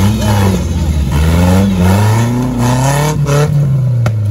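Off-road 4x4's engine revving up and down repeatedly, a new surge every second or so, with a few sharp knocks near the end.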